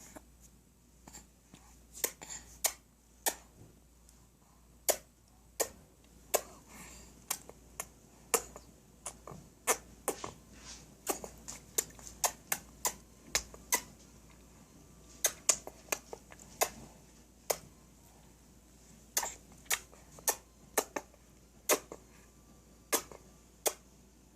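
Mouth pops made as fish noises: lips smacked open and shut, giving a long irregular run of sharp clicks, about one or two a second and sometimes in quick pairs.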